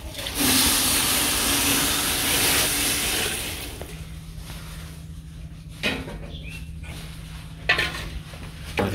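Water poured into a hot pot of fried rice and lentils, hissing loudly for about three seconds, then dying down to a quieter simmer.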